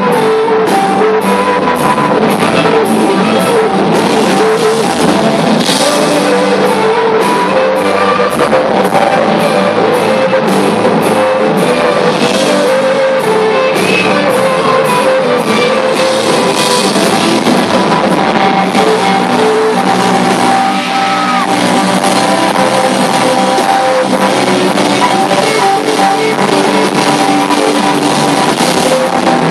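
A live rock band playing loudly: electric guitar over a steady drum beat, with a high cymbal-like tick about three times a second through the first part. It is recorded on a phone in the audience.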